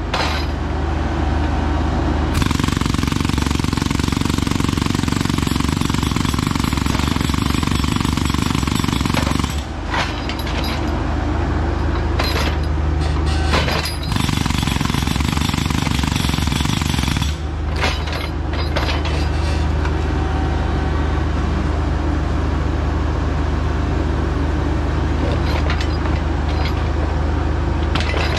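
Hydraulic breaker on a Bobcat E26 mini excavator hammering rock, over the steady run of the machine's diesel engine under load. The hammering breaks off briefly a few times and starts again.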